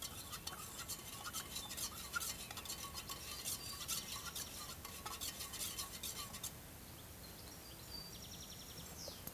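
A spoon stirring a drink in a stainless steel camping mug, quick clinks and scraping against the metal sides, stopping about six and a half seconds in.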